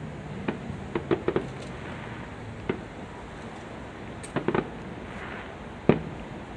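Fireworks going off at a distance: scattered sharp bangs and pops, a quick cluster about a second in, another about four and a half seconds in, and the loudest single bang near the end, over steady background noise.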